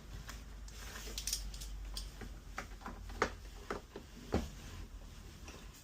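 Scattered light clicks and taps of plastic parts and tubing being handled as a hose is worked back onto the espresso machine's pump fitting, with the sharpest knocks about three and four seconds in.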